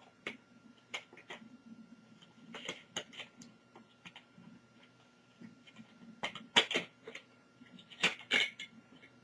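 Faint, scattered clicks and taps of a thin metal shield inside a laptop being slid and pressed into place against the chassis, with small clusters of clicks about three seconds in, near six and a half seconds, and near eight seconds.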